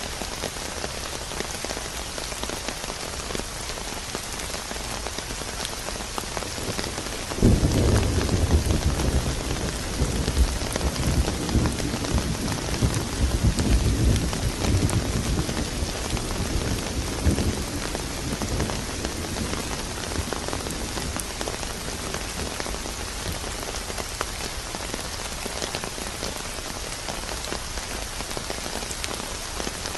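Steady rain falling, with a sudden clap of thunder about seven seconds in that rumbles on in surges for some ten seconds before fading back under the rain.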